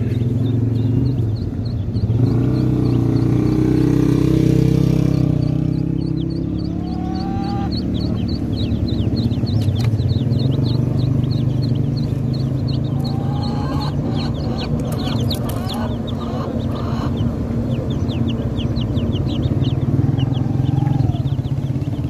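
A crowd of chicks and ducklings peeping: a constant stream of short, high cheeps with a few lower sliding calls among them, over a steady low rumble.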